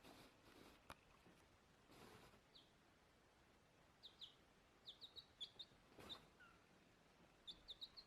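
Faint, short, high chirps from a small bird, each one dropping quickly in pitch. They come in quick runs of several, about halfway through and again near the end.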